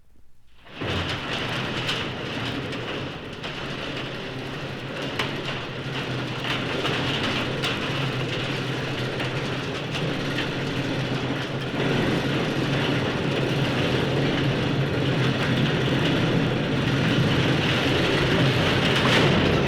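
A recorded mechanical sound effect: machinery running with a dense, steady clatter of small clicks over a low hum. It starts suddenly just under a second in, grows slightly louder in the second half and cuts off abruptly.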